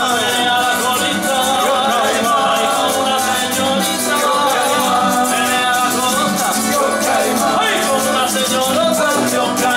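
Live Latin band playing an instrumental passage between verses: electric bass, hand drums and rattling hand percussion keeping a fast even beat under the melody.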